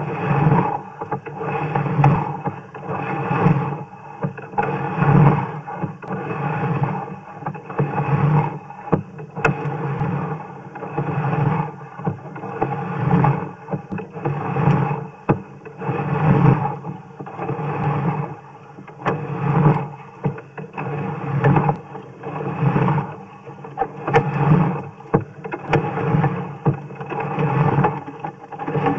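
Sewer inspection camera's push cable being fed by hand into the drain line, a rhythmic scraping swish about once a second with each push stroke.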